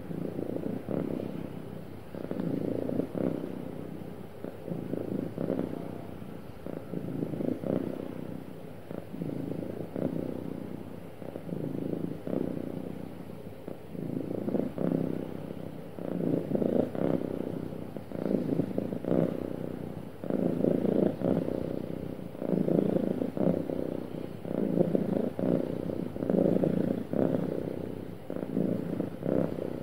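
Domestic cat purring, the purr swelling and fading with each breath, about once a second.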